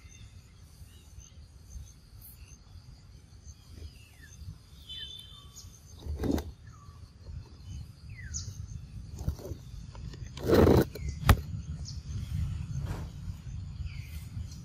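Small birds chirping in short, falling calls over a steady low rumble, broken by two louder thumps (the loudest about ten seconds in) and a sharp click just after it.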